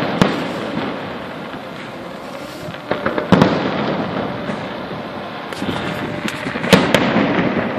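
Fireworks display: sharp bangs of shells bursting just after the start, a cluster of them about three seconds in, and two more near the end, with steady crackling between the bangs.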